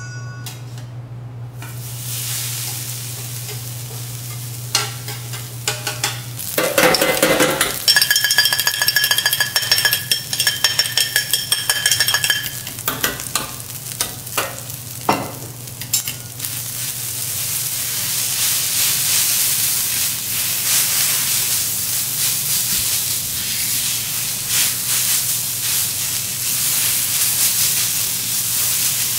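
Kimchi fried rice sizzling on a hot teppanyaki steel griddle, with metal spatulas scraping and chopping through the rice against the plate. The sizzling grows louder and steadier in the second half. Earlier there is a stretch of rapid metallic clicking with a high ringing tone.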